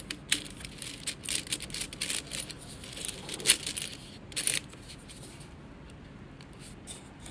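Metal coins in a cardboard tube clinking and rattling as fingers stir through them: quick clusters of sharp clicks that stop about four and a half seconds in.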